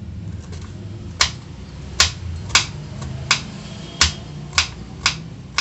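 Kitchen knife slicing a bitter gourd (karela) into rounds on a wooden cutting board. Each cut ends in a sharp tap of the blade on the board: about eight chops, roughly one every two-thirds of a second.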